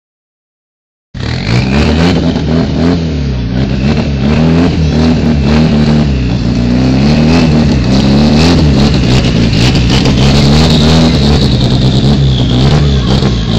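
Honda Civic's single-cam four-cylinder engine revving hard, its pitch rising and falling again and again, starting about a second in.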